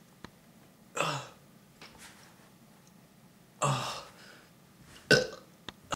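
A man burping three times: once about a second in, once near four seconds (the longest), and once just after five seconds, a short one and the loudest.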